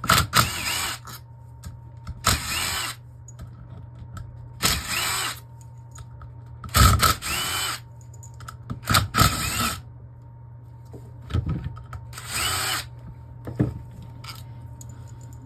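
Power drill-driver running in short bursts, about six spins of half a second to a second each, each rising in pitch as the motor spins up, backing out small bolts from a transmission valve body. A couple of brief clicks fall between the later bursts.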